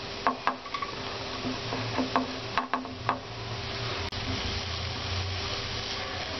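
Chopped onion and green chili sizzling in a little hot oil in a kadhai, stirred with a silicone spatula that clicks and scrapes against the pan several times in the first half.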